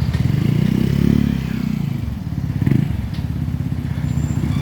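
Heavy truck's diesel engine revving as it manoeuvres in reverse, swelling and rising in pitch about a second in, with a brief second surge near the middle.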